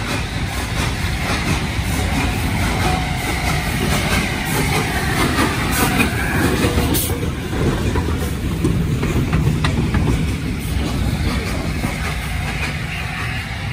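LNER A4 Pacific steam locomotive 60009 'Union of South Africa' and its train of coaches rolling slowly past along a station platform: a steady heavy rumble of the engine and wheels with scattered clicks, and some wavering higher tones as the engine goes by in the middle.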